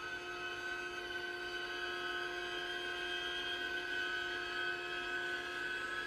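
Sustained drone of several steady held tones, slowly growing louder: a horror-film score.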